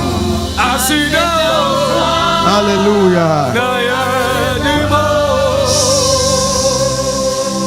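Live gospel worship music with a man singing; he calls out "Hallelujah" about three seconds in, then holds a long wavering note. A steady high hiss joins the music near the end.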